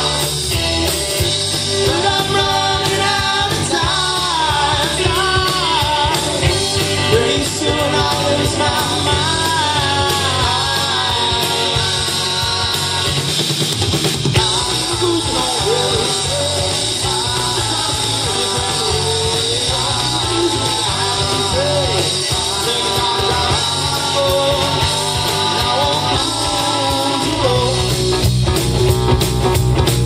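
Live rock band playing a song: electric guitar, bass guitar, drum kit and keyboard, with a man singing the lead vocal. The singing stops near the end and the band plays on instrumentally.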